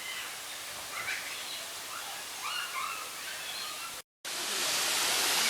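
Birds chirping in short calls over a soft forest hiss, then after a brief gap about four seconds in, the louder, steady rush of a waterfall.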